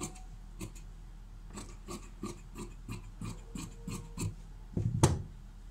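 Tailor's fabric shears snipping through blouse cloth, a steady run of snips about three a second, with a louder clack near the end.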